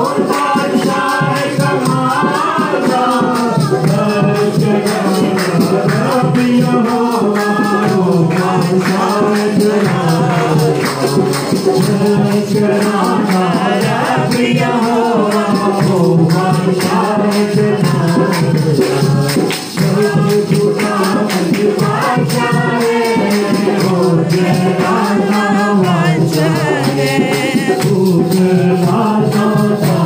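Urdu Christian psalm (Zaboor) worship song: a sung vocal melody over a backing track with a stepping bass line and steady percussion.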